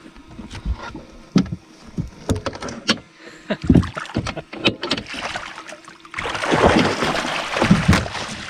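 Northern pike splashing in a landing net held against the side of a boat, with scattered knocks of net and gear against the hull and a loud spell of splashing lasting about two seconds near the end.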